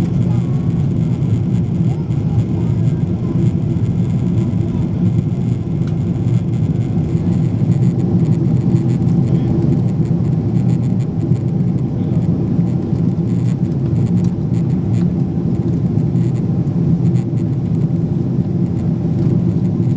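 Steady cabin noise of a Boeing 777-200ER in flight: the low, even rumble of the engines and airflow heard from inside the cabin, with no change in level.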